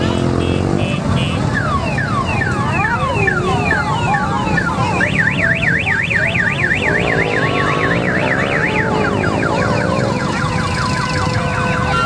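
Electronic siren tones from vehicles in a motorcycle and car convoy: repeated falling wails, then a fast up-and-down yelp for about four seconds from around the middle, then falling wails again. Underneath is the steady running of the engines.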